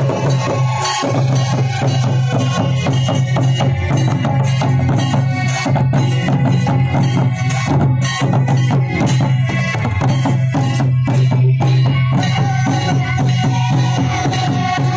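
Santal folk drum ensemble: laced barrel-shaped hand drums (tumdak) and a kettle drum (tamak) played together in a fast, dense rhythm, over a steady low hum.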